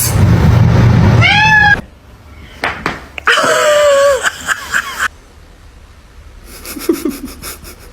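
A domestic cat meowing twice: a short rising-and-falling meow about a second in, then a longer, drawn-out meow that falls in pitch toward its end.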